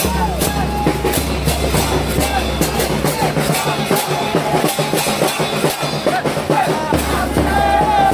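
Crowd of football fans chanting and singing together over a steady drumbeat.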